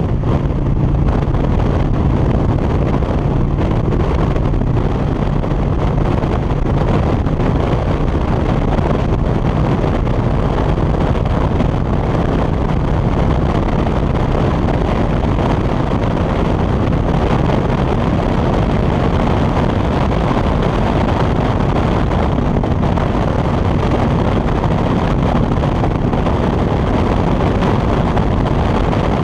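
Touring motorcycle engine running steadily at cruising speed on the open road, mixed with wind rushing over the microphone. The sound stays even throughout, with no changes in engine speed.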